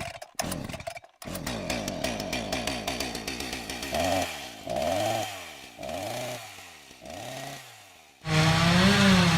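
Chainsaw engine winding down from a high rev, then revved in four short throttle blips about a second apart. Music starts near the end.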